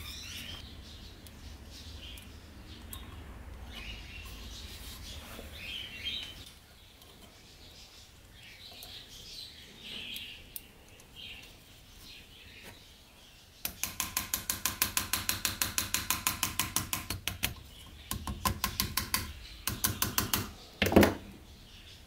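Small hammer tapping a pocket knife's pin to peen it over, in a fast even run of light ringing taps about five a second. Shorter flurries of taps follow, then one harder strike near the end. Before the hammering, faint bird chirps are heard over a low hum.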